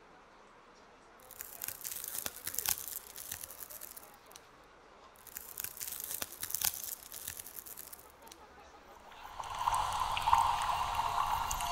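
Two spells of crackling, dripping noise, each a few seconds long and full of small clicks. Then a steady drone with a low rumble swells in near the end.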